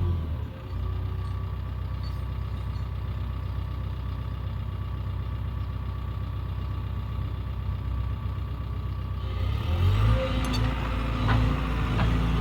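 Excavator's diesel engine running steadily. About nine seconds in the sound becomes louder and brighter, with a few sharp knocks near the end.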